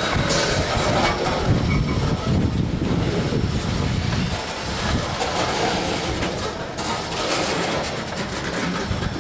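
Grain train covered hopper cars rolling past, their steel wheels rumbling and clattering on the rails. The sound eases off a little in the second half as the last car goes by.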